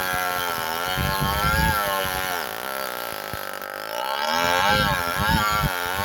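Chainsaw running hard into a red oak trunk, its engine pitch wavering with the load, sagging for about a second and a half in the middle and then climbing back up.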